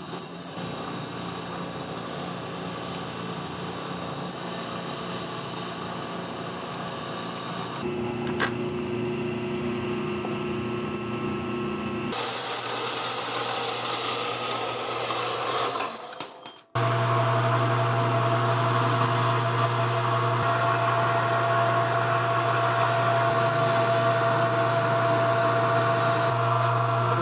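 Machine-shop power tools heard in turn: a metal lathe running, then a bandsaw cutting through a threaded metal part, and from about two-thirds of the way through a lathe drilling into a spinning part, a steady motor hum. The sound changes abruptly several times.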